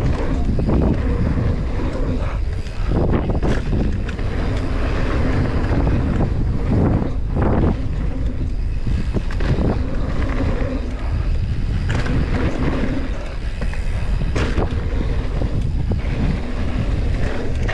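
Mountain bike ridden fast down a dirt jump line: steady wind rush over the microphone and tyres rolling on packed dirt, with several brief thuds from landings and bumps.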